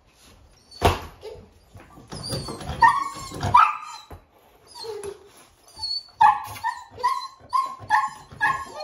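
A dog giving short, high yips and whines, with a run of quick yips about two or three a second in the second half; a single sharp knock about a second in.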